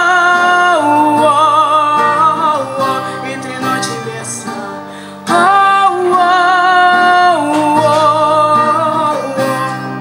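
A girl singing over her acoustic guitar: two long phrases of held notes with vibrato, each stepping down in pitch, with a short break about five seconds in. Guitar strumming comes forward near the end.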